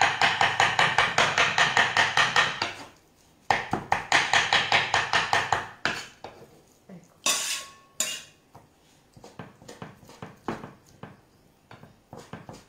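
Kitchen knife chopping raw salmon into tartare on a wooden cutting board: rapid, even knocks about five a second in two runs with a short break about three seconds in, then lighter, scattered taps through the second half.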